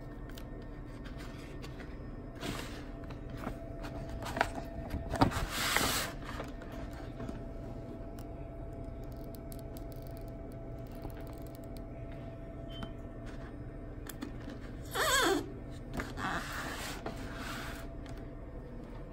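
Printed, cut vinyl decals being peeled up from their backing by hand: a few short rasping peels, the loudest about five seconds in and again near fifteen seconds, over a steady low hum.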